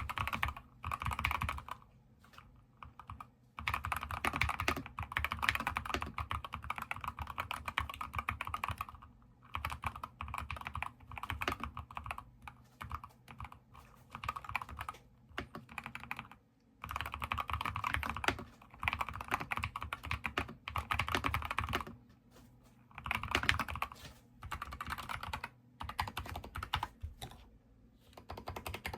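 Fast typing on a Keychron K10 HE full-size keyboard with magnetic (Hall-effect) switches: a dense run of key clicks in several bursts, with short pauses between them.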